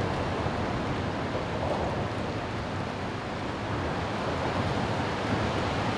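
Steady rushing noise of rain falling on floodwater, even and unbroken.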